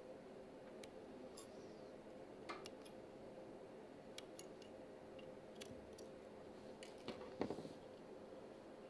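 Small flush cutters snipping support material and brim off a 3D-printed plastic part: faint, irregular clicks and snips, the loudest about seven and a half seconds in, over a faint steady hum.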